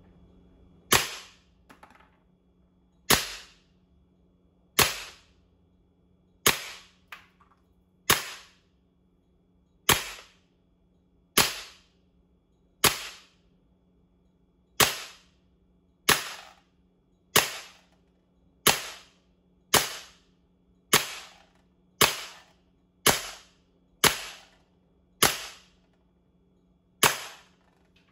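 Sig Air CO2 BB pistol firing about nineteen single shots, each a sharp crack with a short ring, spaced one to two seconds apart and coming faster toward the end.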